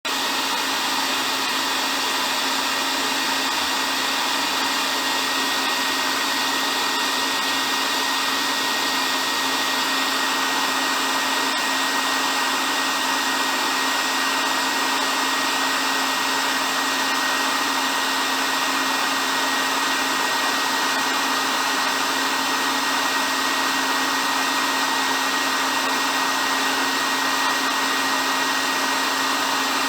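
Hair dryer running continuously, a steady airy rush of blown air with a constant motor hum and a thin high whine, unchanging throughout.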